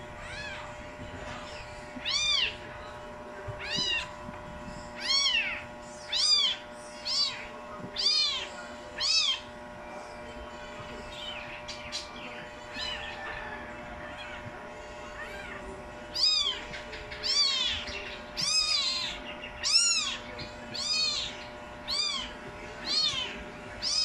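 Very young kittens mewing while they wrestle: short, high-pitched mews that rise and fall, about one a second, with a lull of several seconds in the middle.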